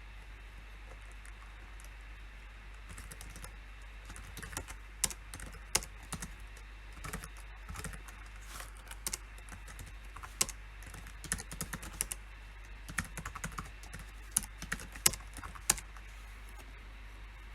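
Typing on a PC keyboard: irregular runs of key clicks, with a few sharper, louder strokes, starting a few seconds in and stopping shortly before the end, over a faint steady hum.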